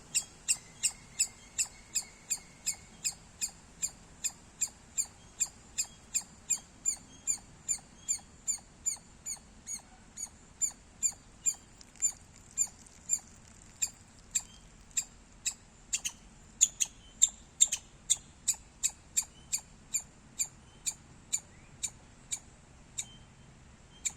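Squirrel chirping: a long run of short, sharp, high-pitched chirps repeating steadily at about two and a half a second, a few of them louder about two-thirds of the way through.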